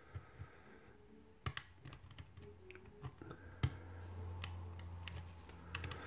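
Lock pick and tension wrench working the pins of a brass mortise cylinder during single-pin picking: scattered small metallic clicks and taps, the sharpest a little past halfway. A low steady hum comes in right after that click.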